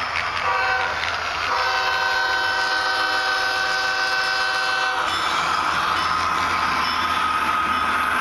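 HO scale model diesel locomotives' sound-decoder horn sounding for the crossing: a short blast about half a second in, then a long blast of about three and a half seconds. After that a steadier rushing sound with one high tone carries on as the locomotives pass, over a constant low hum.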